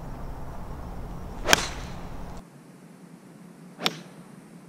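Golf 7-iron swung through and striking the ball off the tee: a swish ending in a sharp click about one and a half seconds in. The same crisp strike sounds again, fainter, a little after the middle.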